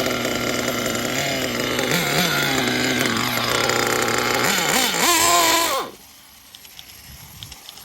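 Kyosho Inferno NEO ST 3.0 RC car's small nitro engine running at a steady idle, blipped twice briefly, then revved higher with a wavering pitch before the sound stops abruptly about six seconds in.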